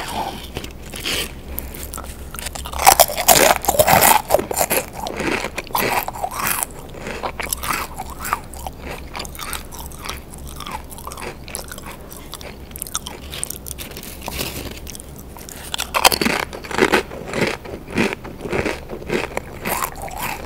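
Close-miked crunching of Pringles potato crisps: loud bites about three seconds in and again about sixteen seconds in, each followed by a run of quieter chewing crunches.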